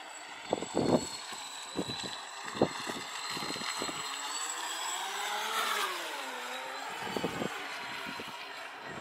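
Radio-controlled speedboat running at speed, its motor whining high and steady, the pitch dipping about halfway through and climbing again. Short low thumps come and go throughout.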